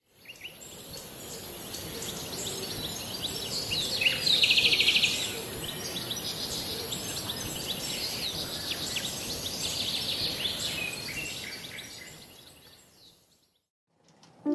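Outdoor ambience of many small birds chirping over a steady high-pitched hiss, with a loud rapid trill about four seconds in. It fades in at the start and fades out shortly before the end.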